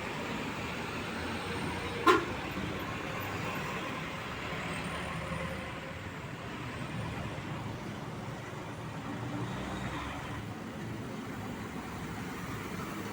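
Steady road traffic noise, with truck engines running. About two seconds in there is a single sharp knock.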